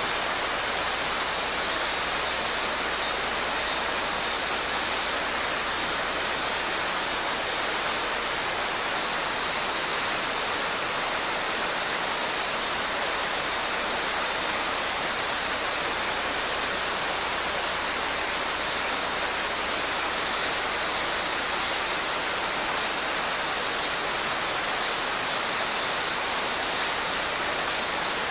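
Mountain stream rushing steadily, with faint, wavering cicada song high above the water noise.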